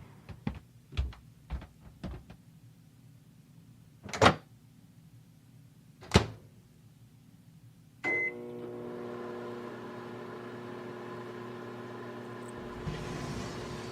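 A few light clicks and two sharp knocks, then a microwave oven beeps once about eight seconds in and starts running with a steady hum.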